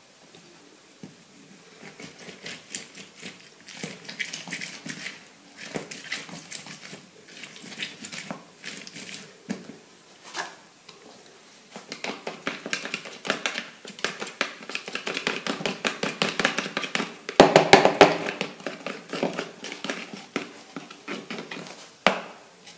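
Lemon halves twisted and pressed on a plastic hand citrus reamer: quick rubbing, scraping strokes, sparse at first, then coming fast and louder about halfway through.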